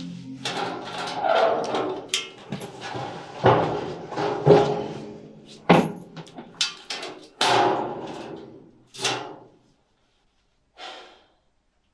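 A series of irregular knocks and bangs with short echoes, coming thick and fast for the first nine seconds or so and then thinning to two faint knocks near the end.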